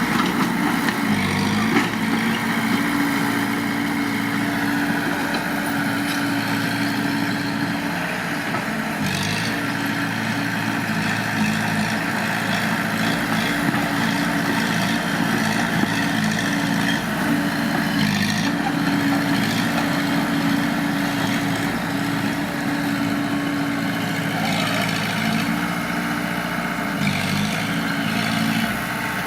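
Heavy earthmoving diesel engine running steadily under work, its pitch dipping briefly a few times.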